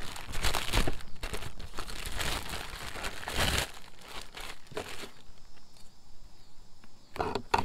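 Packaging crinkling and rustling as the rear sunshade is pulled out of its package, dense for about three and a half seconds, then trailing off to a few faint rustles.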